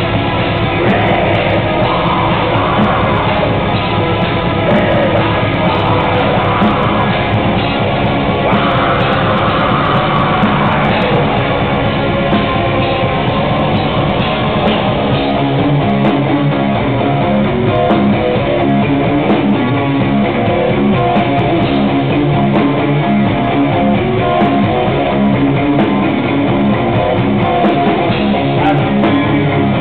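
A progressive black metal band playing live: distorted electric guitars, bass and drums, loud and continuous.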